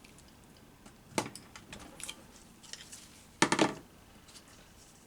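Small screwdriver clicking and scraping against metal inside the gearbox case while fishing out a detent ball. There is a single click about a second in, then light ticks, and about three and a half seconds in a sharp clatter of several quick metal clicks, the loudest sound.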